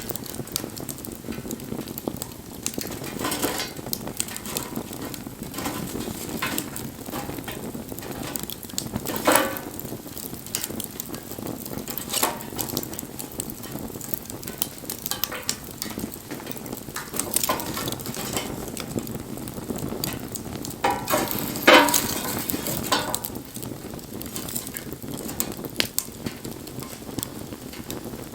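Wood campfire burning: a steady hiss with irregular crackles and sharp pops. The loudest pops come about nine seconds in and in a cluster around twenty-two seconds in.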